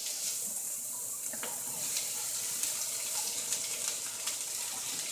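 Diced Vidalia onions sizzling in olive oil in a frying pan, a steady hiss with fine crackles as they start to sauté, easing off near the end.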